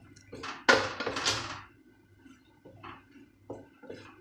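A spoon or spatula scraping and stirring in a cooking pan of curry: a few short, scratchy strokes, loudest in the first second and a half, with softer ones near the end.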